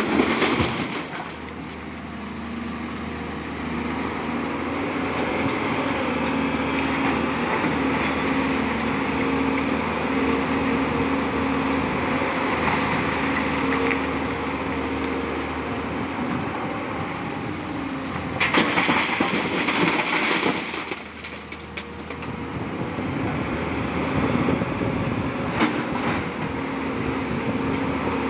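Tata Hitachi 200 tracked excavator working in broken rock: the diesel engine and hydraulics run with a steady hum while the bucket scrapes and rocks clatter. A loud rock clatter comes at the start as a load is tipped into a dump truck. A louder stretch of scraping noise lasting about two seconds comes around 18 seconds in.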